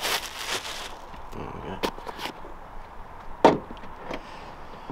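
A car door being handled and opened: a brief rustle, a few light clicks, then one sharp latch click about three and a half seconds in.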